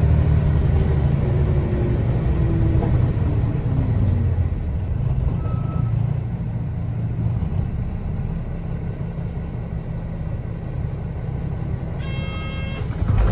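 Nissan Diesel Space Runner RM bus engine heard from inside the cabin, its note falling over the first few seconds as the bus slows, then running low and steady. Near the end comes a short electronic beep tone, then a loud thump.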